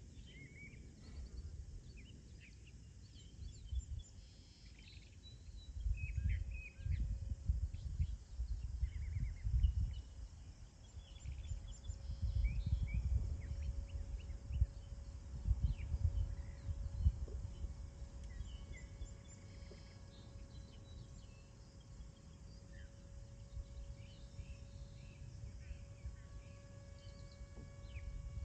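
Wind buffeting the microphone in gusts, heaviest through the middle, over birds chirping. A faint steady hum sets in about ten seconds in and carries on.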